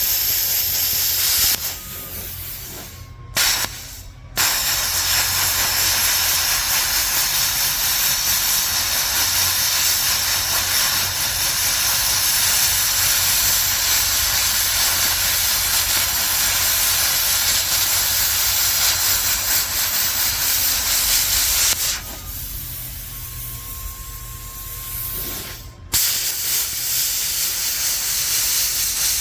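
Miller plasma cutter cutting rusted steel: a loud steady hiss of the arc and air. It cuts off twice for a few seconds, about two seconds in and again about 22 seconds in, leaving only a faint steady tone before the hiss starts again.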